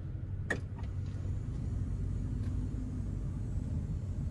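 Low, steady rumble of a car heard from inside its cabin as it moves slowly, with a single sharp click about half a second in.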